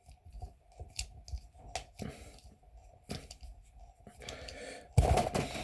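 A barbed metal quick connector being twisted and pulled out of the end of a rubber tire inflator hose: scattered clicks and short scraping and rubbing noises, with a louder scraping rush about five seconds in.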